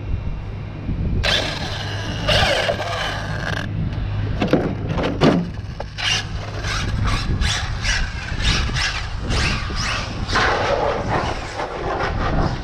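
6S electric RC car being driven hard: the motor whines up and down in repeated bursts of throttle while the tyres squeal and scrape on the pavement, with wind rumbling on the microphone throughout.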